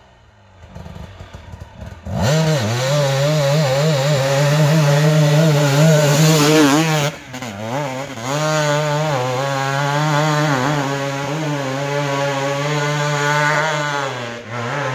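KTM 250 EXC TPI two-stroke dirt bike engine running under throttle, its pitch wavering up and down as it is ridden. It comes in suddenly about two seconds in after a quieter start, and dips briefly around seven seconds.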